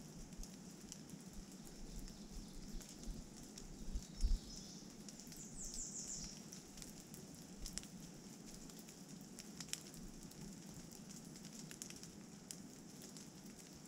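Rain dripping and pattering on leaves and the trail, with scattered ticks of single drops. A low gust of wind hits the microphone about four seconds in, and a brief, high bird call of a few quick notes follows just after.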